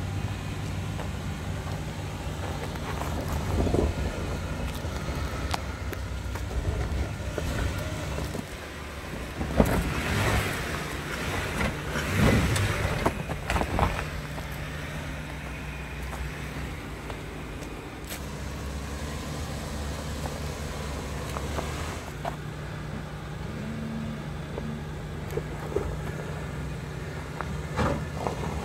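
Stock Jeep Wrangler's engine running at low revs as it crawls over rutted dirt, with a stretch of louder rough crunching and rustling about ten to fourteen seconds in.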